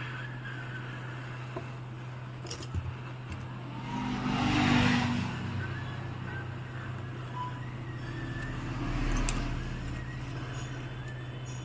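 Hot-air blower running with a steady hum while the phone's back glass is heated to soften its adhesive, with a few light clicks. A rushing swell rises and fades about four to five seconds in, and a smaller one comes near nine seconds.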